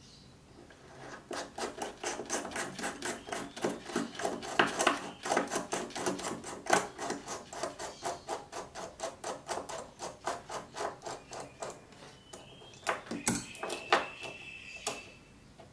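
Rapid, even clicking of small metal lens parts, about four or five clicks a second, as the front of a 25mm CCTV lens is worked open. It ends with a few louder separate clicks and a brief high squeak.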